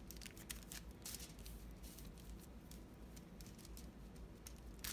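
Faint crinkling of aluminum foil and soft patting as hands shape a floured ball of dough on the foil, with a few light rustles in the first second or so and quieter handling after.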